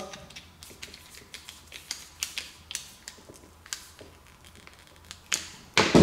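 Irregular light clicks and taps of a small hand tool tightening a set screw in a brass battery-cable splice connector, with a louder clatter about a second before the end.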